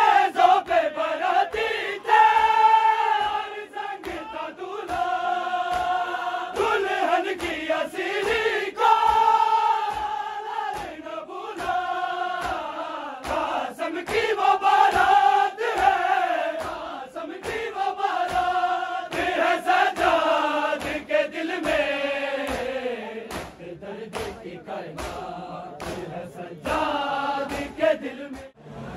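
A noha chanted in unison by a crowd of mourning men, with long held notes, kept in time by a steady beat of matam: hands slapping on chests in rhythm with the lament.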